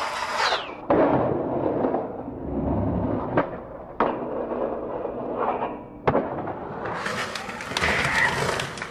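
Skateboard on a metal stair handrail: sharp clacks as the board pops and lands on the rail, the scraping of a crooked grind down it, and wheels rolling on concrete after the landing.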